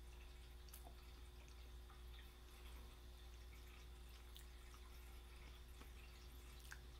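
Near silence: room tone with a steady low hum and a few faint, short ticks.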